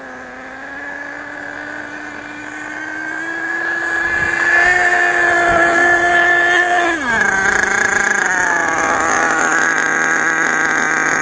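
HPI Savage 4.6 RC monster truck's small nitro engine buzzing at high revs as the truck comes closer, its pitch and loudness rising slowly. About seven seconds in the revs drop sharply, and the engine settles to a lower, steady note as the truck slows.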